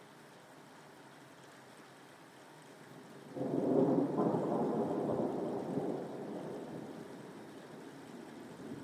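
Rain falling as a faint steady hiss, then about three seconds in a peal of thunder breaks in suddenly and rumbles, dying away slowly over the next several seconds.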